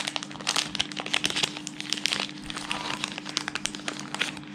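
Clear plastic protective bag crinkling irregularly as hands pull it off a new action camera, over a steady low hum.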